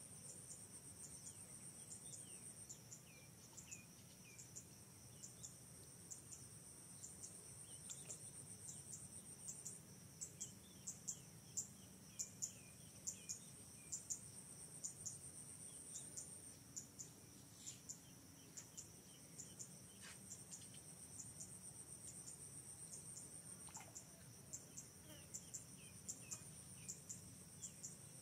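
Insects chirping in a faint, high, pulsing chorus, with a few faint short bird chirps now and then.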